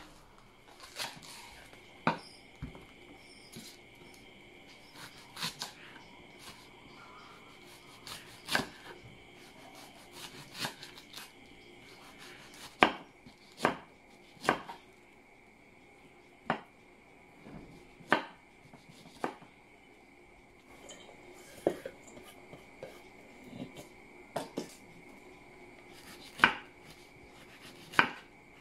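A kitchen knife shredding cabbage on a wooden cutting board: separate sharp knocks of the blade on the board, irregularly spaced at about one a second, some much louder than others.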